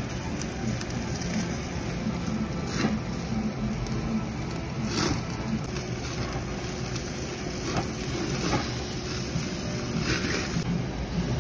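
Meat sizzling on a tabletop grill over a steady background hum, with louder hissing flare-ups three times.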